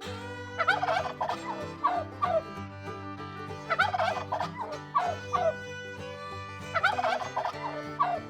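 Turkey gobbling over and over: three full rattling gobbles about three seconds apart, with shorter gobbles between them.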